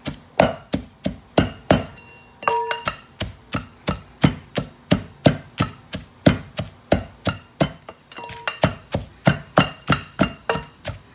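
Wooden pestle pounding ingredients into a coarse paste in a large mortar: a steady run of dull thuds, about three a second.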